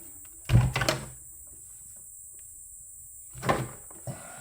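Knocks and thumps of a Breville Barista Express espresso machine's body as it is turned back upright and set down on the bench: a quick cluster of bumps about half a second in and a single knock near the end.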